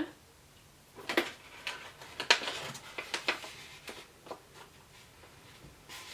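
Someone chewing a piece of dry beef jerky close to the microphone: a run of irregular mouth clicks and short crackly crunches that thins out into a few faint clicks.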